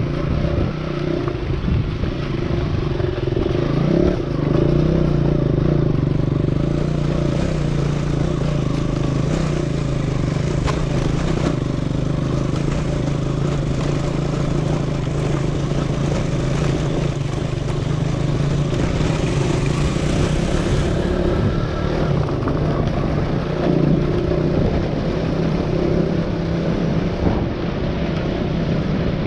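Motorcycle engine running at a steady pitch while the bike is ridden along a rough dirt track.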